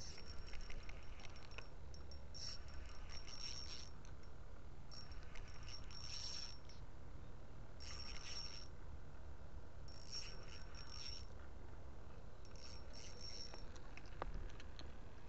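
A small songbird singing short, high, ringing phrases, about one every two seconds, six times over, with a low steady rumble underneath.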